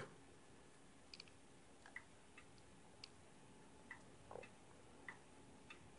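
Near silence: room tone with a scattering of faint, short clicks at uneven intervals.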